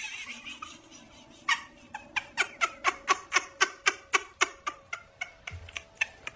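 A cat making a rapid series of short, sharp calls, about five a second, for several seconds.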